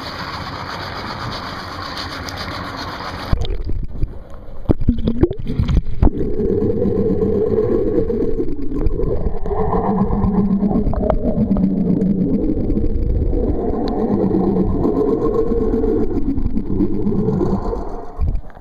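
A boat's outboard motors idling. A steady rushing hiss for the first three seconds, then the sound turns suddenly muffled into a low, wavering drone with a few knocks, and the drone runs on to the end.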